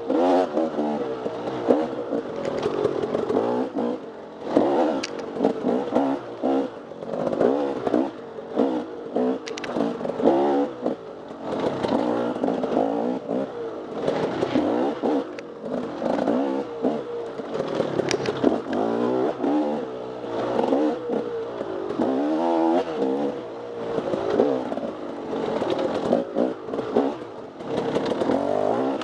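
Off-road motorcycle engine revving up and down in quick succession as the throttle is opened and shut over rough trail, with clattering from the bike and terrain.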